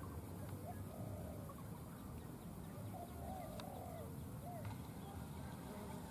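Spotted dove cooing: short, arched coos in repeated phrases, with pauses of a second or two between them.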